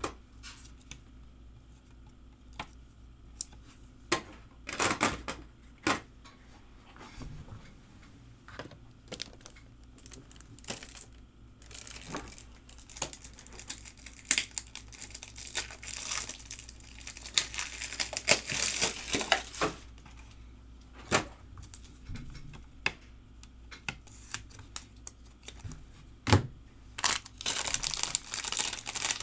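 Silver foil card-pack wrappers crinkling and tearing, with a busier stretch of rustling in the middle and scattered sharp clicks and taps of trading cards being handled.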